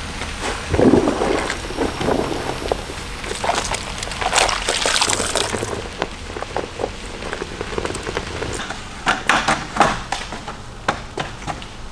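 Water sloshing and splashing during a car wash, in irregular bursts with scattered clicks and knocks.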